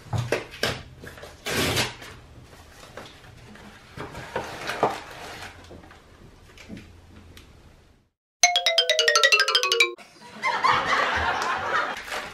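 Paper envelope rustling and being handled, then a short falling comic sound effect, loudest of all, and then the crinkling of a small plastic packaging pouch being opened.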